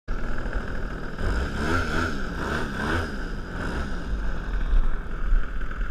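Motor and propeller of a radio-controlled Edge profile aerobatic model airplane, heard from a camera on board: a steady high whine with wind buffeting the microphone.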